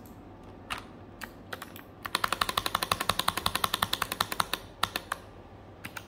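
Keys of a keyboard being struck: a few scattered clicks, then a fast, even run of about ten clicks a second lasting a couple of seconds, then a few more single clicks.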